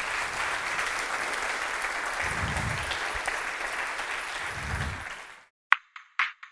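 An audience applauding steadily. The applause cuts off about five seconds in, and a few short, sharp sounds follow near the end.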